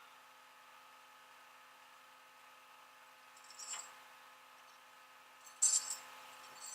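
A few short metallic clinks and rattles, one about midway and a louder cluster near the end, over a faint steady hum.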